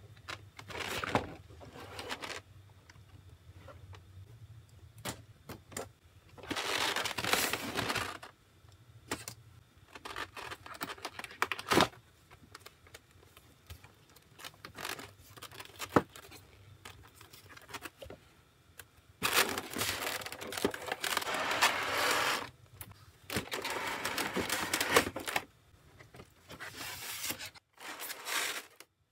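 Cardboard packaging being handled: a box and its white card inserts sliding and rustling in several long swishes, with scattered sharp taps and clicks in between.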